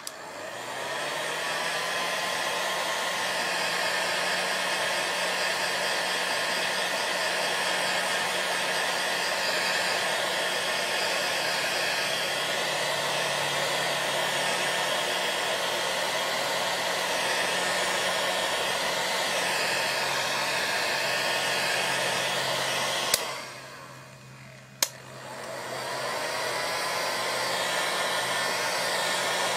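Craft heat tool (embossing heat gun) blowing steadily, heat-drying a coat of crackle medium to touch dry. Its fan spins up at the start, cuts out with a click about three-quarters of the way through, then clicks back on a couple of seconds later and spins up again.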